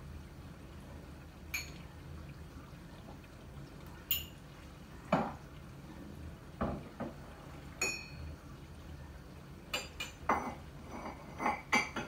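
About a dozen short, sharp clinks and knocks, irregularly spaced and coming more often toward the end, over a faint steady low hum.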